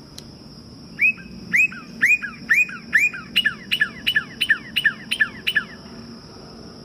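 Recorded northern cardinal song played from the exhibit's button-activated speaker. It is a series of clear down-slurred whistles starting about a second in: about five spaced notes, then a quicker run of about nine.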